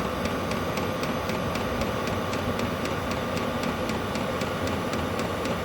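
Chinese 12-volt diesel air heater running at a steady level: its blower fan and burner whir with a steady high tone. Its fuel dosing pump ticks faintly several times a second.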